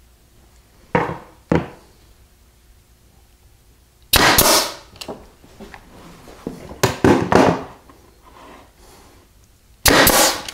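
Wooden frame strips knocked and clattering on a workbench as they are set in place, then near the end one sharp shot from a pneumatic nailer firing into the frame corner.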